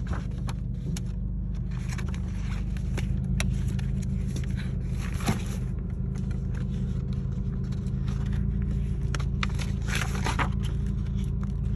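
Paper pages of a spiral-bound planner being turned and brushed by hand, a string of short rustling flips, with a louder cluster of page turns near the end. A steady low hum runs underneath.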